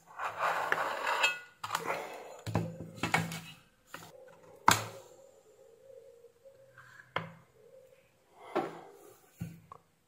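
Handling noises as a power adapter's circuit board is slid out of its aluminium shield and its black plastic insulating sheet is unfolded. Rustling and scraping come in short bouts, with a few sharp clicks, the sharpest about five seconds in.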